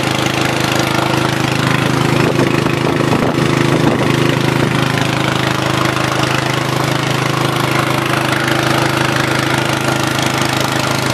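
Six-inch Turgo hydro turbine running steadily under water jets at about 20 psi, driving an inverter generator: a constant hum over a steady rush of spraying water.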